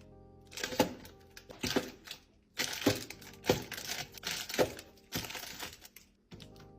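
Crinkly plastic wrappers of packaged chocolates being handled, with a sharp clack about once a second as the packs are set down.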